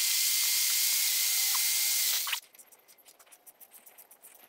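Power drill running with a twist bit boring into the cast axle housing: a loud steady hiss with a steady whine through it, cutting off suddenly about two seconds in. After it, faint quick clicks of a ratcheting tap handle cutting threads in the hole.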